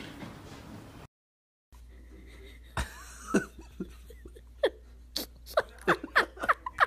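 A person's snickering laughter: a run of short giggles starting about three seconds in and coming quicker toward the end.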